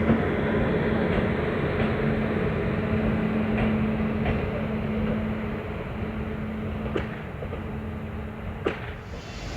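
WAP-5 electric locomotive running light, a steady rumble of wheels on rail with a steady hum that breaks off now and then. Two sharp clicks near the end.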